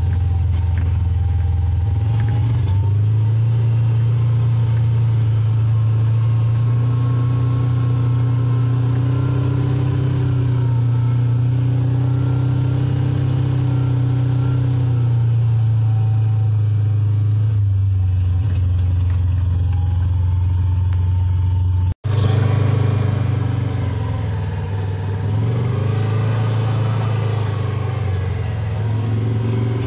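Side-by-side utility vehicle's engine running under way, a steady low drone that rises and falls in pitch with the throttle. It breaks off abruptly about two-thirds through and picks straight up again.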